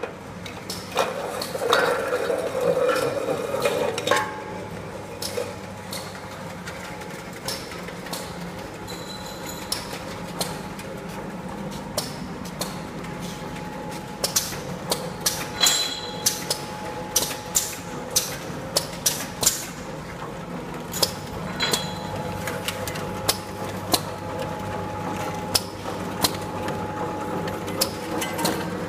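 A milk-powder can packaging line running: a steady machine hum under frequent sharp metallic clicks and clanks from tin cans knocking on the conveyor and from pneumatic parts. A louder clatter comes in the first few seconds.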